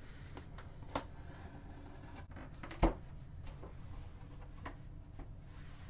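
A cardboard shipping box being slit open with a pocket knife and its flaps pulled back: scattered scrapes, rustles and short knocks of cardboard and knife. The loudest is a sharp knock about three seconds in.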